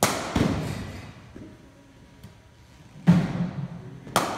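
Cricket bat striking a ball in an indoor practice net, with echoing thuds: a sharp crack right at the start and a thud just after it, then about three seconds in a heavy thud from the next delivery and another sharp crack of bat on ball near the end.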